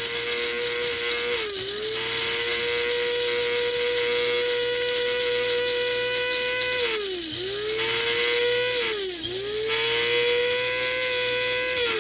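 Electric blade coffee grinder motor running at full speed, grinding coffee beans with a steady whine. Its pitch sags briefly and recovers three times, about a second and a half in, past the middle, and again shortly after.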